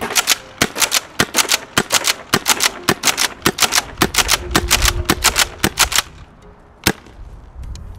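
Tokyo Marui KSG gas airsoft shotgun being fired and pumped: a fast run of sharp cracks and clacks, several a second and often in close pairs, for about six seconds, then one more shot about a second later.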